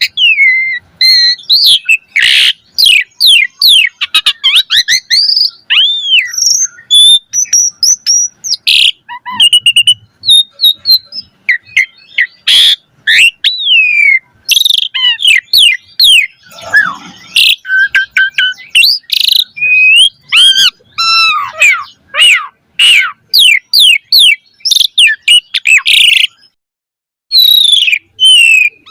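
Asian pied starling (jalak suren) in full, vigorous song: a fast, varied run of whistles, rising and falling glides and harsh chattering notes, full of phrases mimicked from other birds. The song breaks off for about a second near the end, then starts again.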